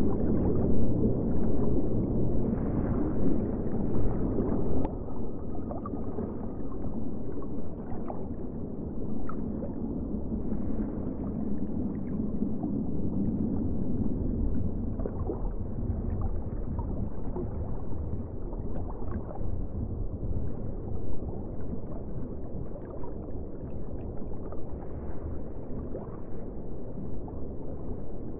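Underwater ambience: a steady, muffled low wash of water noise with scattered faint clicks.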